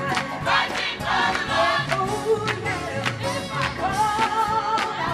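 Gospel choir singing over musical accompaniment with a steady percussive beat.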